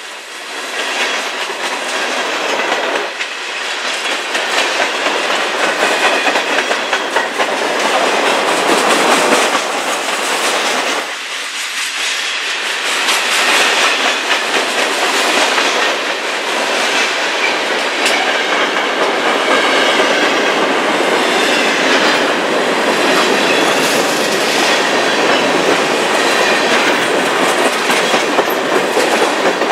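Freight cars of a passing mixed freight train (tank cars, boxcars, covered hoppers) rolling by close at hand: a steady rolling noise of steel wheels on the rails with repeated clicks as the wheels cross rail joints.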